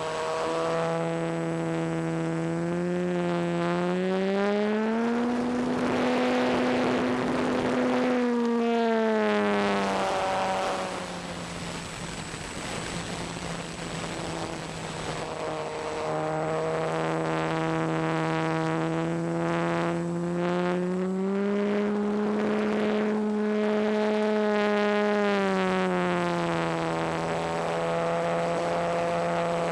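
ParkZone T-28 RC plane's electric motor and propeller, heard from an onboard camera: a steady buzzing whine that rises in pitch as the throttle is opened, about five seconds in and again about twenty seconds in, then settles back. Around ten to fifteen seconds in the motor is throttled back and mostly the rush of air over the plane is heard.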